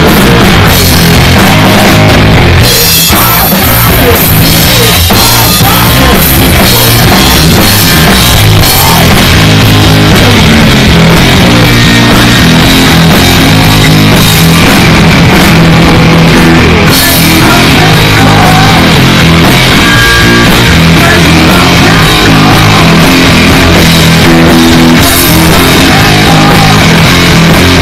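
Heavy metal band playing live at full volume: distorted electric guitar, bass guitar and drum kit, steady and very loud throughout.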